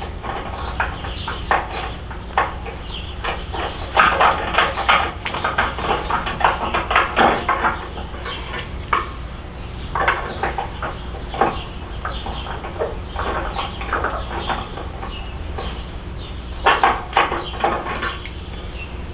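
Hand tools working on motorcycle bolts: irregular clicks, clinks and scrapes of a socket and metal parts, in clusters with pauses between.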